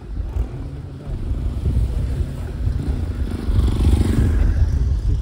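A motorcycle passing close by, its engine swelling to its loudest about four seconds in. Underneath is a heavy low rumble of wind buffeting the microphone.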